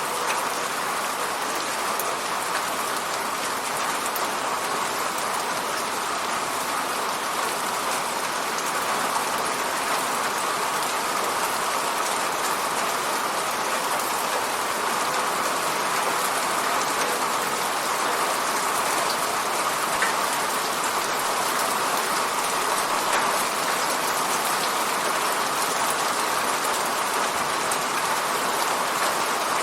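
Steady rain falling on an apartment window, an even hiss with a few sharper drop taps now and then.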